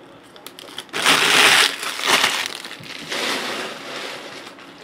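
Empty foil trading-card pack wrappers being crumpled up by hand: loud crinkling about a second in, again at about two seconds, and more softly just after three seconds.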